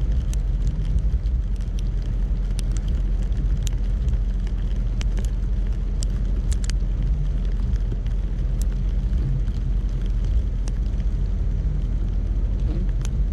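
A car driving, with steady low road and engine rumble and scattered faint sharp ticks.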